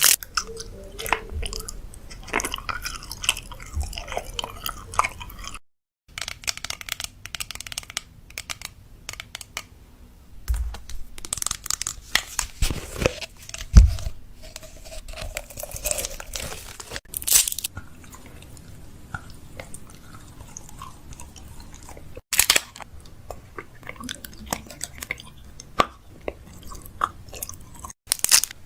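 Fridge restocking: plastic packaging crinkling and containers and items clicking and tapping as they are handled and set into place, with brief breaks where one clip cuts to the next.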